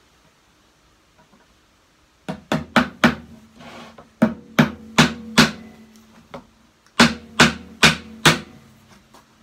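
Claw hammer driving nails into the top edge of a plywood box, starting about two seconds in, in three quick runs of about four blows each with short pauses between. Each blow leaves a brief low ring from the hollow box.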